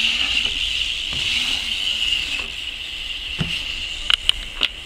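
A steady high-pitched hiss. Near the end come three or four sharp clicks as a BMX bike rolls into the concrete bowl.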